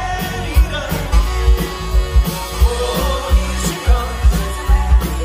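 Live soft-rock band: a male lead singer sings into a handheld microphone over a steady drum beat and heavy bass.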